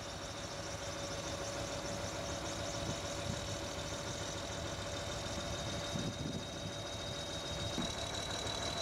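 Engine of a heavy boat-moving truck running steadily at low speed as it hauls a large sailboat on a trailer.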